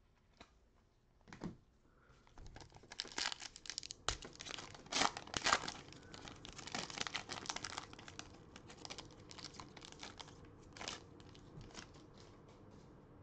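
Crinkling and tearing of a Panini Select trading-card pack's foil wrapper as it is ripped open by hand. The crinkling is densest from about two and a half to eight seconds in, then thins to scattered crackles and clicks as the cards are pulled out.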